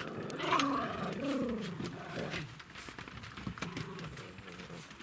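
Poodles growling at one another while they scuffle, loudest in the first couple of seconds, then quieter.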